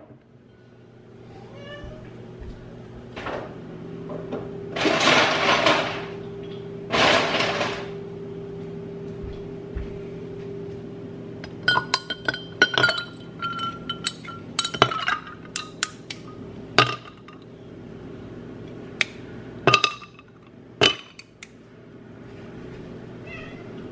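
Ice cubes dropped into a tall glass of coffee, a run of sharp clinks against the glass with a brief ring after each. Two short rushing, rattling bursts come a few seconds before the clinks, and a cat meows faintly a few times.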